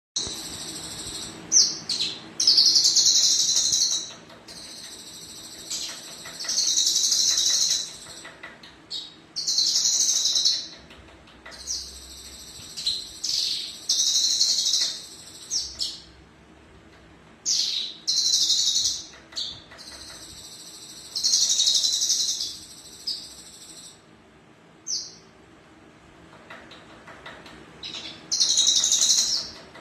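Male Javan bush lark (branjangan) singing: loud high phrases of about a second each, repeated every few seconds, with short chirps between them.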